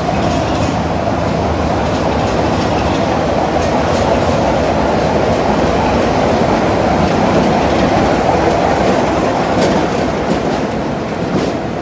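Class 33 diesel locomotive with its Sulzer eight-cylinder engine running steadily as it passes close by. A few sharp clicks come from the wheels near the end.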